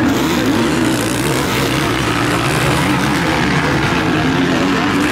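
Motocross motorcycle engines racing on the track, running loud and steady, their pitch rising and falling as the riders work the throttle.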